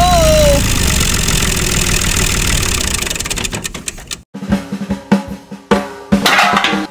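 Tractor engine sound running steadily with a short pitch glide near the start, fading out about four seconds in. Background music with a regular drum beat follows.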